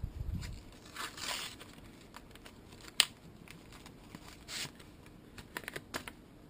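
White paper wrapping being torn and crumpled by hand: scattered short rustles and rips, with one sharp click about three seconds in.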